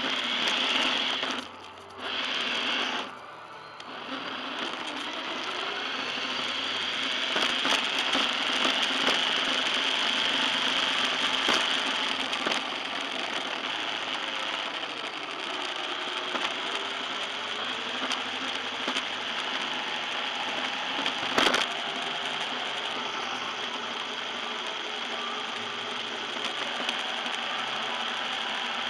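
Emax Interceptor FPV RC car driving on a hard tiled floor, recorded from its onboard camera: a steady mechanical whir and rattle of its electric motor and drivetrain, dropping away twice briefly near the start. A single sharp knock sounds about two-thirds of the way through.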